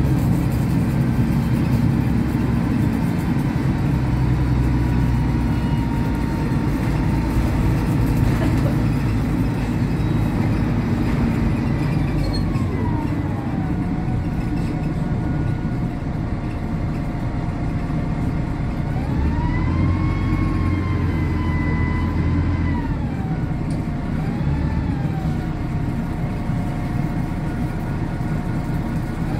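Inside the cabin of a moving MAN 18.220 single-deck bus: steady diesel engine rumble and road noise, with a whining tone that drops about halfway through, rises again about two-thirds in, dips briefly and starts climbing near the end.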